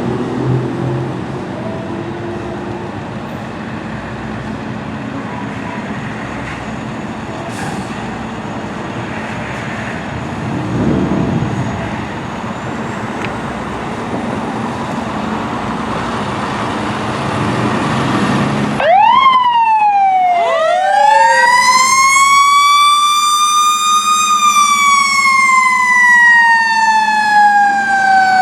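Fire truck engine and traffic noise, then about two-thirds of the way in the truck's siren starts: a quick rise and fall, then a long wind-up to a high wail that slowly winds back down.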